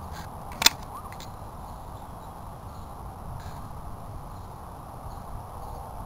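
A single sharp click about half a second in, far louder than anything else, over a steady low outdoor rumble, with a few faint ticks later.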